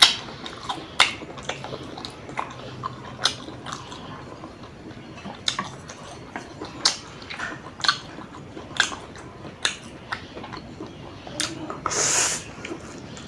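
Close-miked chewing of spicy instant noodles: wet mouth clicks and smacks at irregular intervals. Near the end comes a half-second slurp as a mouthful of noodles is sucked in.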